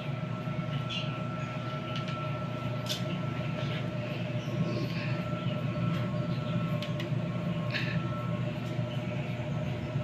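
Twin-tub washing machine's wash motor running steadily, its pulsator churning sudsy laundry and water; a low hum with a steady whine over it and a few faint clicks. The machine is broken and keeps turning without stopping.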